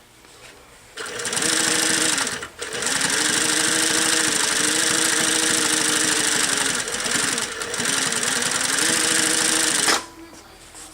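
Juki LH-3578 industrial sewing machine with a 4-to-1 ruffler attachment sewing at speed, a fast steady mechanical clatter with a motor hum. It starts about a second in, stops briefly for an instant, runs on with a slight slowing in the middle, and stops shortly before the end.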